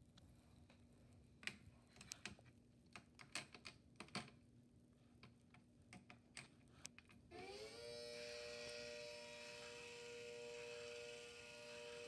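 Scattered light clicks and taps over a faint steady hum; about seven seconds in, a recording of an ACA Hurricane 130 tornado siren starts up, rising quickly in pitch and levelling off into a steady two-note wail.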